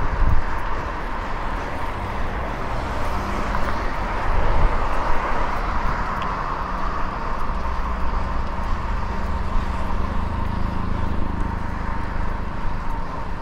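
Wind buffeting a rider-mounted microphone over steady city traffic and road noise while a fixed-gear bicycle is ridden through the streets. A faint steady whine runs throughout, and a low engine-like hum joins about halfway through.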